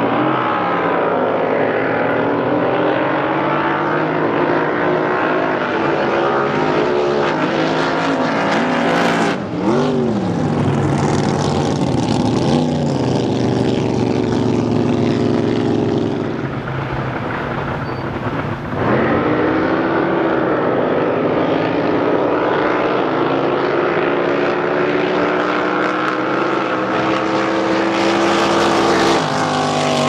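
Supercharged drag boat racing engines run hard down the course, their pitch gliding up and down as the boats accelerate and pass. The sound changes abruptly twice, about a third and about two thirds of the way in.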